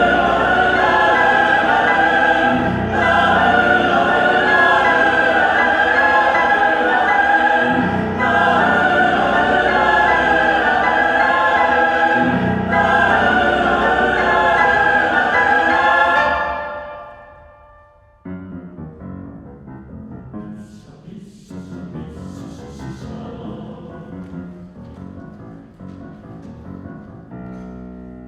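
Mixed choir with piano sings loud, sustained chords, with heavy low accents every four or five seconds. About 16 seconds in the sound dies away, and after a brief hush the piano plays on quietly alone.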